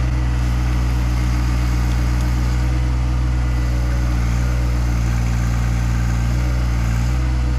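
John Deere 1025R sub-compact tractor's three-cylinder diesel engine running steadily.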